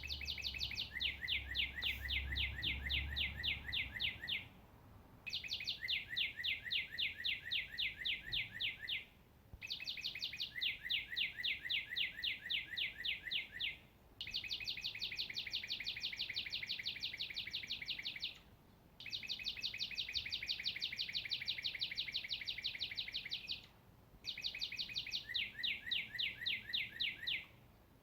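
A songbird singing long, even trills of rapid notes, about ten a second, each trill lasting three to four seconds. The trill is repeated six times with short pauses, and partway through each one the notes step down lower.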